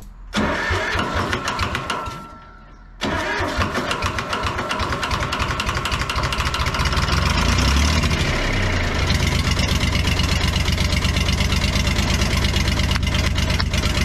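Diesel engine of a 1970s John Deere 310 backhoe cranking on the starter, pausing briefly, then cranking again until it catches and settles into steady running. This is its first start after years of sitting, fired on starting fluid with heavy oil poured into the cylinders to seal worn piston rings.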